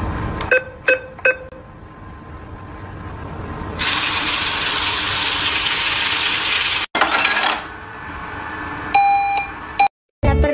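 Three quick electronic beeps, then a few seconds of steady hissing, then one more short beep near the end.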